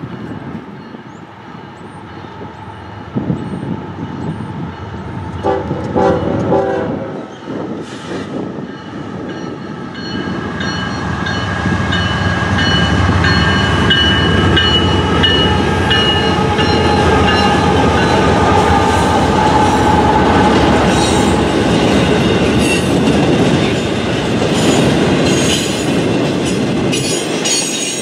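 Diesel-hauled freight train approaching and passing: a short horn blast about six seconds in, then the rising rumble of the locomotives going by, followed by double-stack container cars rolling past with clickety-clack and a high wheel squeal.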